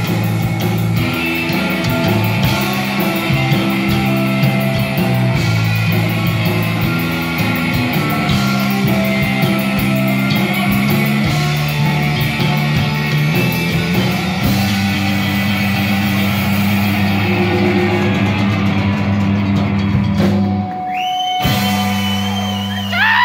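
Live rock band of electric guitars and drums playing an instrumental passage. About 20 seconds in the band breaks off, then holds a closing chord, and near the end notes glide down in pitch as the song ends.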